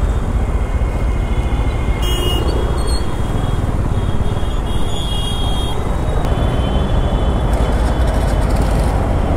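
Bajaj Pulsar N250 motorcycle riding through city traffic: a steady low rumble of wind and engine, with vehicle horns tooting briefly several times in the traffic around it.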